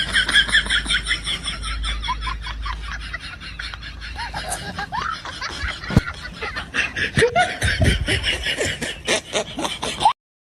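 People laughing: a long run of quick, repeated giggles that cuts off suddenly just before the end.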